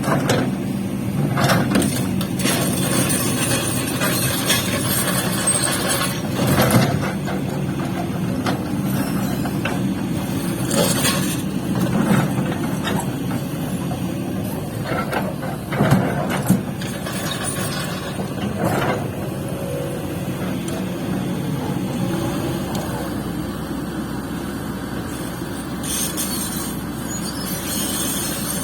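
Diesel engines of a Kobelco hydraulic excavator loading a dump truck, running steadily, with a few short sharp clatters and hisses, the loudest about 7 and 16 seconds in.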